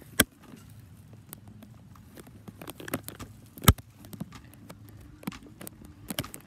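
Scattered clicks and knocks while riding a hoverboard with a handheld phone, over a low steady hum. Two sharp knocks stand out, one about a quarter second in and one near four seconds in.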